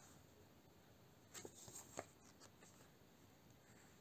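Near silence, with a few faint rustles of a paperback colouring book's pages being handled and turned, about a second and a half to two seconds in.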